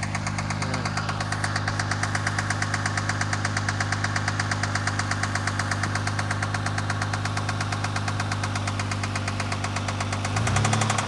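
2000 Mercury Cougar engine idling with a steady, rapid knock in time with its running, a knock of unknown cause. Near the end the engine is revved and its pitch rises.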